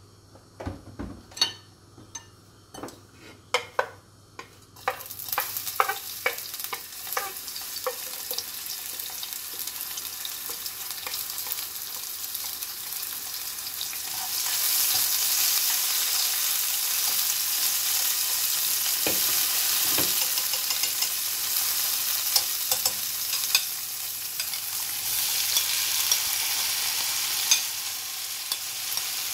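Chopped peppers and green onions sizzling in hot oil in a nonstick wok, stirred with chopsticks. A few sharp taps come first; the sizzle starts about five seconds in and grows louder about halfway, when sliced onions are added.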